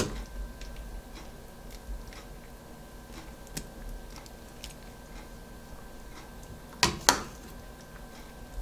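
Metal serving spoon clicking lightly against a plate and bowl while soup is dished out, with two sharp clinks close together about seven seconds in. A faint steady electrical hum underneath.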